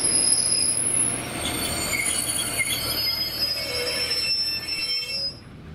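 A train running past with its wheels squealing on the rails: several thin high-pitched squeals over a steady rumble, fading away near the end.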